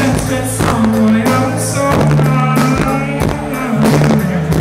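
Live indie rock band playing: a man singing over electric guitar, keyboards and drums, with long sustained bass notes and steady drum hits, recorded from the crowd.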